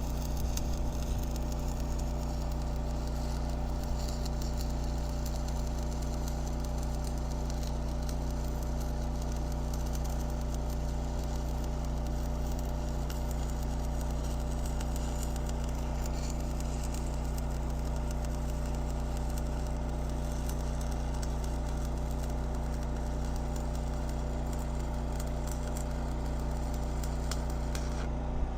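Welding arc crackling and sizzling steadily for a long, unbroken bead over a constant low machine hum, as a stress crack in a steel scraper is welded up.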